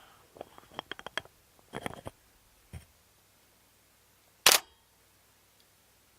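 Canon EOS 6D Mark II DSLR: a run of light clicks over the first two seconds, then one loud, sharp shutter release a little past the middle.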